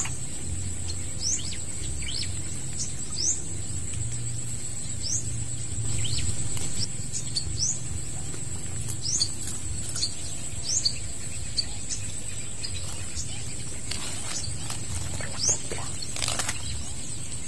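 Small birds chirping in short quick calls, over and over, above a steady high-pitched drone and a low rumble. A few sharp clicks come near the end.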